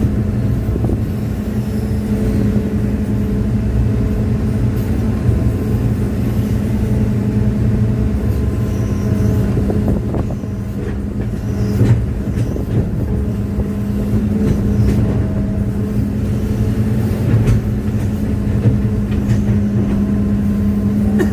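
Hitachi excavator's diesel engine running steadily, with a few knocks from the working machine.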